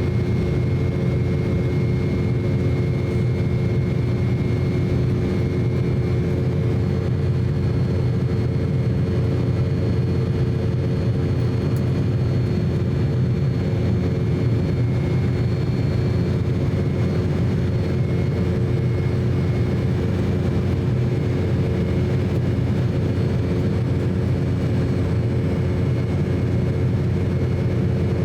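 Cabin noise inside an Embraer E190 jet airliner, its General Electric CF34-10E turbofans running steadily: a loud, even rumble with a few steady whining tones above it.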